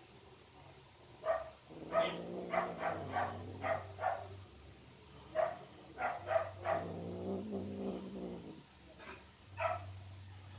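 Domestic cats mating: low growling in two stretches of about two seconds each, with strings of short, sharp chirp-like calls at about three a second.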